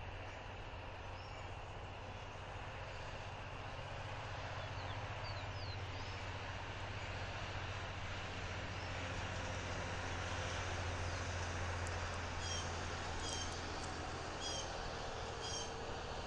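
Outdoor ambience dominated by a distant low engine drone that swells toward the middle and then eases, as of a passing aircraft or traffic. Small birds chirp faintly around the fifth second, then give four short, sharp chirps about a second apart near the end.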